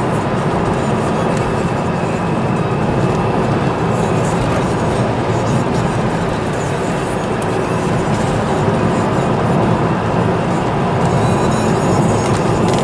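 Steady in-car drive noise: a car's engine and tyre rumble heard from inside the cabin while driving along a country road.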